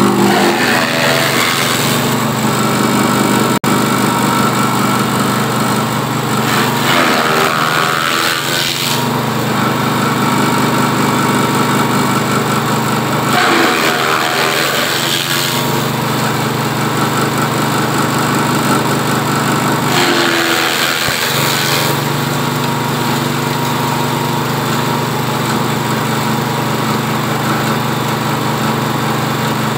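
Engine-driven cassava-stalk chopper running steadily with a small petrol engine. Three times, its pitch and the grinding noise change briefly as stalks are fed in and chopped.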